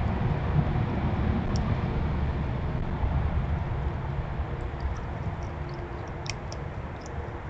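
Low, steady outdoor background rumble that slowly fades, with a few faint, sharp clicks near the end.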